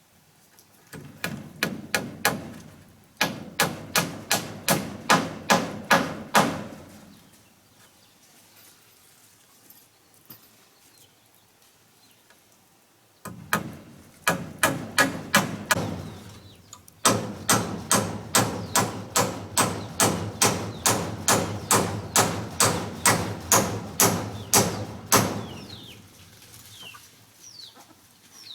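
Rapid, evenly spaced strikes of a hand tool, about three a second, in runs of several seconds broken by pauses of a few seconds.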